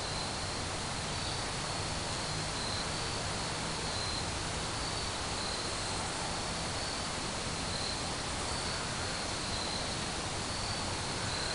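Insects chirping in a faint high pulsing rhythm, a little more than once a second, over a steady hiss of outdoor background noise.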